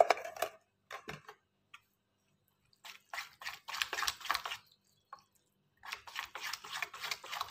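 Metal spoon stirring thick semolina batter in a stainless steel bowl, wet squelching with the spoon scraping the steel, to mix in the baking soda. A couple of light clicks come first, then two spells of fast stirring, about three seconds in and again about six seconds in.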